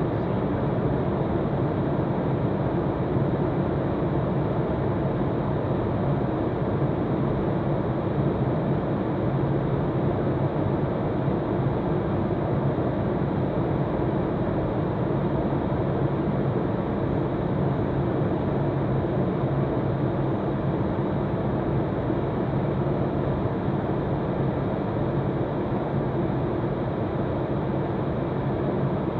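Steady cockpit noise of an Eclipse 500 twin-jet on final approach: the hum of its two rear-mounted turbofans at approach power mixed with the rush of air over the cabin, unchanging throughout.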